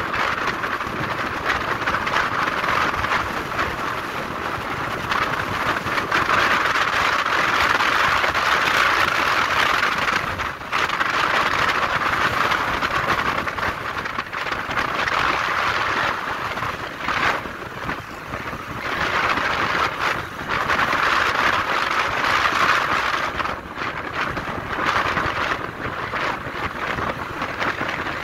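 Steady rush of wind and road noise from a motorbike riding in traffic, dipping briefly a few times.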